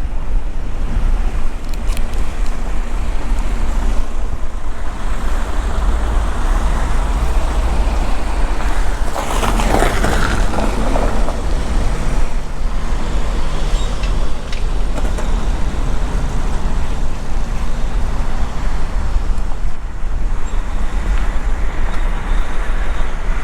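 Semi truck running with a steady low engine rumble, with a louder rushing noise that swells and fades about nine seconds in.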